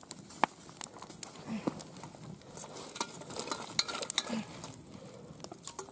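Chopped vegetables clattering out of a metal colander into a cast iron cauldron of boiling broth: a run of quick small clicks, knocks and splashes that is busiest about three to four seconds in.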